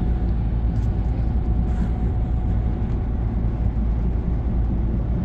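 Steady low rumble of a semi-trailer truck cruising on the highway: engine and road noise heard from inside the cab, with a faint steady whine above it.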